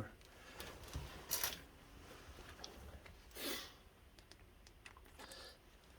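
Quiet handling noise: faint scattered clicks and rustles, with two short hissy bursts about one and a half and three and a half seconds in.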